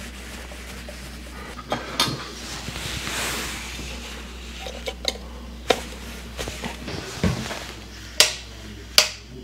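Metallic clicks and knocks as a metal-faced RCD socket is handled and pressed onto its wall box, with a brief scraping rustle a few seconds in. Near the end, two sharp clicks about a second apart as the socket's switch is pressed.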